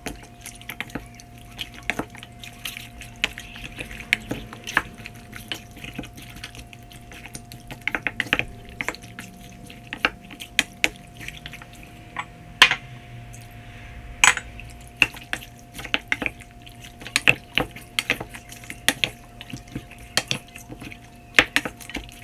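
Wooden spatula stirring chunks of raw chicken in soy-sauce marinade in a stainless steel bowl: wet squelching and sloshing, with irregular clicks and knocks as the spatula hits the metal bowl.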